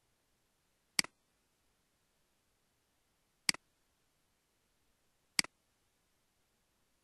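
Computer mouse button clicked three times, each a sharp click with a quick press-and-release double tick.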